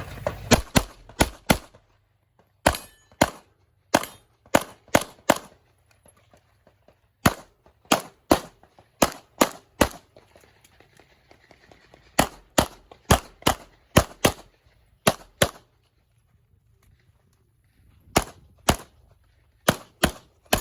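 Rapid 9mm pistol fire from a Glock 34 Gen 5 on a competition stage: about thirty sharp shots, mostly fired as quick double-taps, in several strings broken by pauses of one to two seconds.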